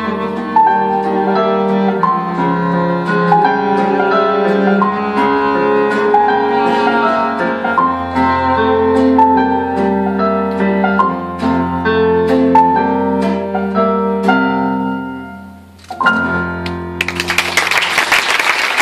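Chamber trio of keyboard piano, cello and classical guitar playing, the music thinning out and dying away about three-quarters through, with a short closing chord. Audience applause breaks out near the end as the piece finishes.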